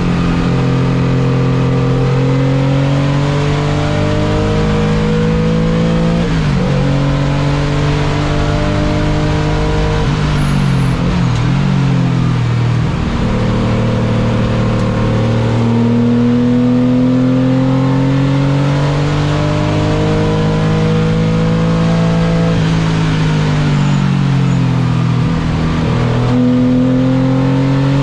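A car's engine heard onboard at speed on a race track, pulling hard with the revs climbing, then dropping back with quick blipped downshifts under braking, three times over.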